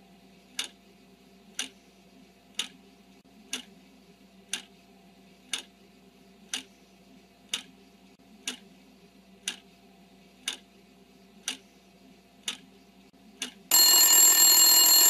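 Quiz countdown timer sound effect: a clock ticks about once a second over a faint low hum, then near the end a loud alarm bell rings to mark that time is up.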